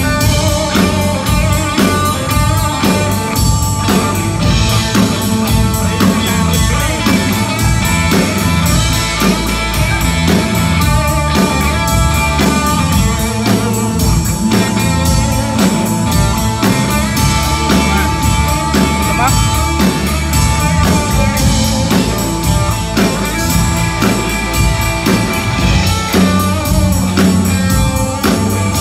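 A live blues band playing: electric guitar over drums and bass guitar, with a steady beat.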